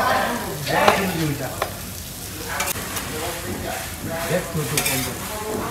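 Hot oil sizzling in a large karahi where hilsa fish is being fried, with a few sharp clinks of a metal spatula against the plate and pan as the fried pieces are served out.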